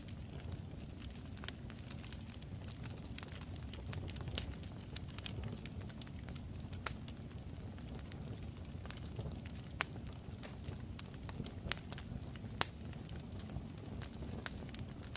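Crackling fire: a steady low rumble with irregular sharp pops and snaps scattered through it.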